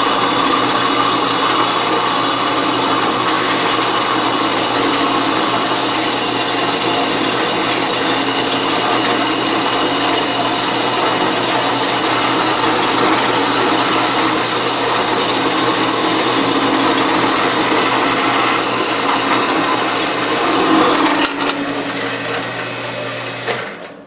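Bandsaw converted for metal cutting, running and cutting through aluminum angle stock: a steady motor hum under the sound of the blade cutting. Around three seconds before the end the sound changes, then it cuts off.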